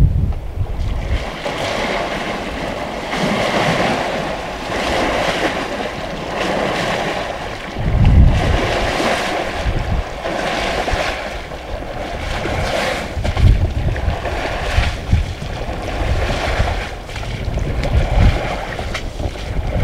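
Wind rushing across the microphone in a steady hiss, with deeper buffeting gusts about 8 seconds in and twice more later.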